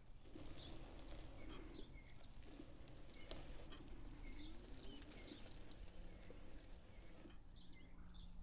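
Faint outdoor ambience: short high bird chirps repeating every second or so over a low, quiet hum.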